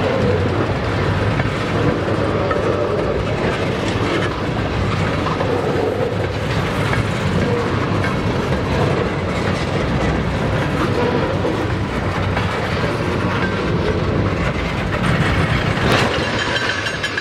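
Freight train of tank cars rolling past close by: a steady rumble of steel wheels on rail, with rapid clickety-clack as the wheels pass over rail joints.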